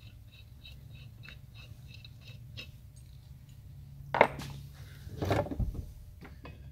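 Light metallic clicking of tools and valve-spring parts being worked on an LS cylinder head, about three small clicks a second, over a steady low hum. A sharp clank comes about four seconds in and a heavier clatter a second later.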